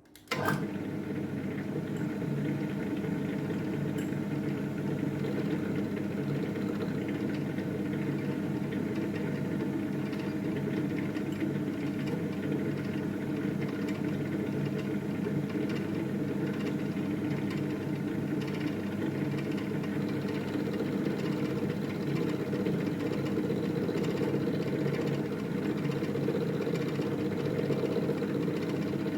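Milling machine running steadily with its end mill cutting the bar stock, starting suddenly just after the beginning.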